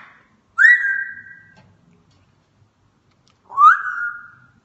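African grey parrot whistling: two long whistles about three seconds apart, each swooping up in pitch and then held steady.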